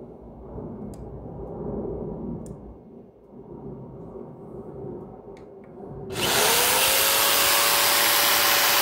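Corded electric jigsaw switched on about six seconds in after a few light handling clicks. Its motor whines up to speed within a moment and then runs loud and steady at one pitch, the blade cutting nothing.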